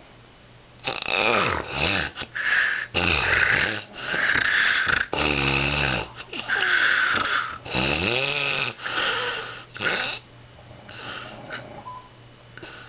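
A man snoring in his sleep: a run of loud snores, several with a pitched, wavering tone, starting about a second in and easing into softer breaths near the end.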